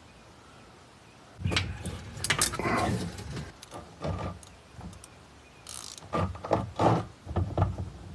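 Ratchet and socket on the oil drain plug of a Kawasaki Teryx 750, clicking in quick runs, with metal tools clinking. The clicking starts about a second and a half in and comes in irregular bursts.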